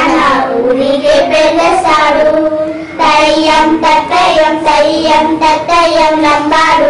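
Children singing a Lambadi (Banjara) folk song, a melodic chant that breaks off briefly about three seconds in and then goes on.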